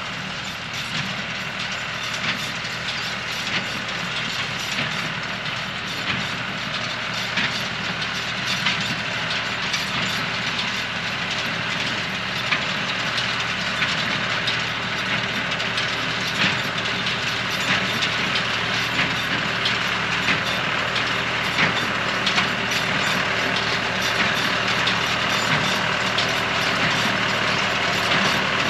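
John Deere 24T square baler running behind a tractor while baling hay: a steady mechanical clatter with frequent sharp knocks over the tractor engine's drone, getting gradually louder.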